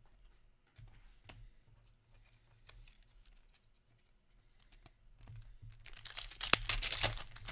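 Scattered light taps and clicks of trading cards being handled, then, from about six seconds in, a trading-card pack's foil wrapper being torn open with a loud crinkling rip and one sharp snap in the middle.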